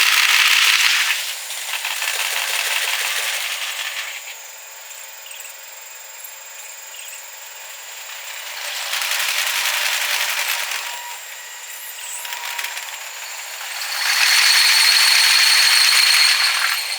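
Trains passing over a level crossing: wheel-and-rail clatter swells and fades several times, loudest at the start and again near the end, where a high steady whine rides on top.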